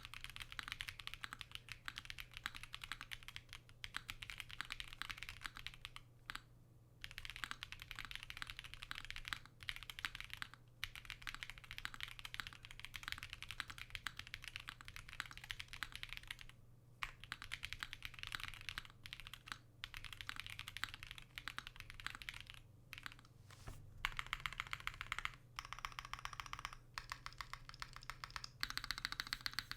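Typing on a Wave 88 mechanical keyboard with BBN switches lubed with 205g0 and double-stage springs, built with case and plate foam but no PE foam. The keystrokes come as a fast, continuous clatter, with brief pauses about seven and seventeen seconds in.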